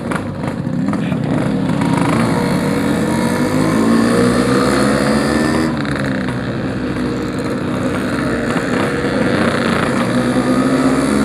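Yamaha RX-King 135cc two-stroke single-cylinder engine under way, its pitch climbing for the first few seconds, falling sharply about five and a half seconds in, then climbing again. The rider says the clutch is stretched ('molor').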